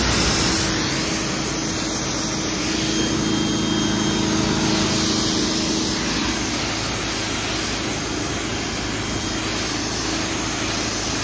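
Active 2.0 electric pressure washer spraying a high-pressure water jet from its wand onto pavement: a loud, steady hiss of spray with a low steady hum beneath.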